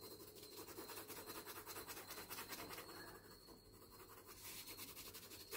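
Pencil lead rubbing on drawing paper in quick, light shading strokes: a faint, fine scratching.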